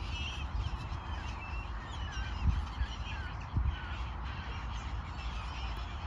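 A flock of gulls calling repeatedly, many short wavering and falling cries overlapping, over a constant low rumble with a couple of dull thumps.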